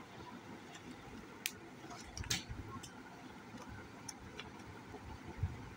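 Stiff laminated pages of a children's write-and-wipe book being flipped by hand, giving a few light ticks and snaps, the two loudest about a second and a half and two seconds in.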